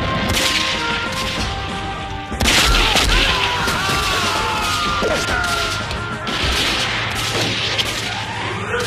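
Battle sound effects over a music score: a loud explosion about two and a half seconds in, followed by a continuing din of blasts and gunfire.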